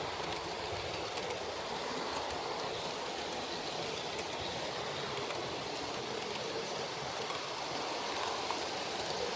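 HO-scale model train running on track: a steady rolling rush of wheels on rail and motor, with scattered faint clicks.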